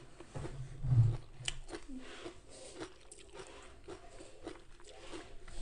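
Close-up mouth sounds of a person chewing a crunchy mouthful of raw vegetable salad, with many short crackling crunches and wet clicks. There is a brief low hum about a second in.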